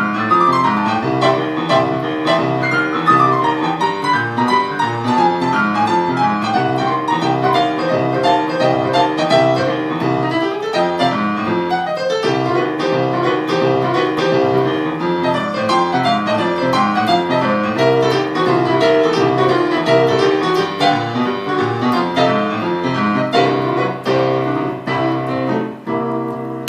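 Solo piano playing a lively, fast-moving piece, with quick runs of notes up and down the keyboard over a steady left-hand accompaniment. The playing eases off near the end.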